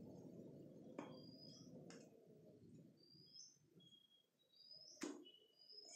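Near silence: a few faint plastic clicks from the cable plug being seated in the Flysky transmitter's DSC port and the radio being handled, the clearest near the end. Faint short rising bird chirps sound in the background in the second half.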